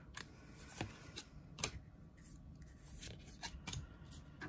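Digimon trading cards being flipped through by hand, each card slid across the stack with a short, faint swish or flick, about half a dozen times.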